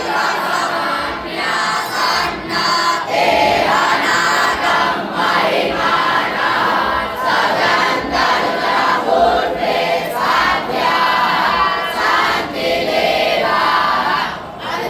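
A large group of voices chanting together, sustained without a break.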